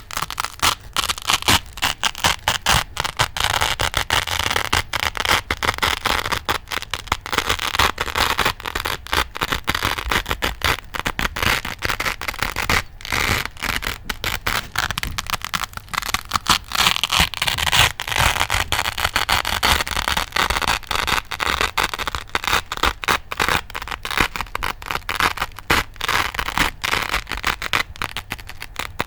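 Velcro hook-and-loop strips being ripped and scratched, a dense, crisp crackling that runs almost without a break, with only short pauses.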